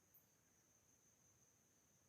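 Near silence, with a faint steady high-pitched tone running throughout and a tiny tick just after the start.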